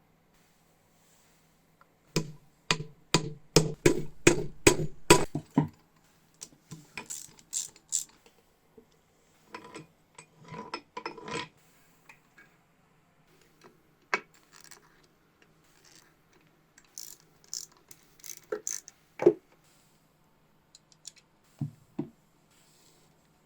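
Hand work on metal engine parts: a quick run of about a dozen sharp taps, about four a second, then scattered clinks, scrapes and a few single knocks as parts and tools are handled.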